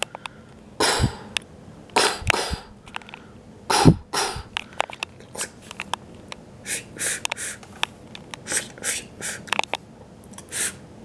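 A person's voice imitating comic-book sound effects with the mouth. A few loud clanking noises come in the first four seconds, then a run of short, scratchy "ratch" sounds.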